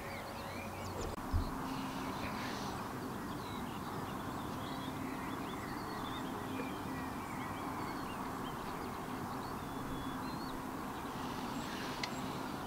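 Birds chirping and calling over a steady outdoor hiss, with a faint steady low hum underneath. A single brief low thump about a second in.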